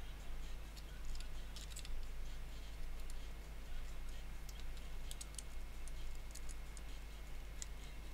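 Light, irregular clicks and taps of a femtocell's plastic casing and circuit board being handled and fitted together, coming in small clusters, over a steady low hum.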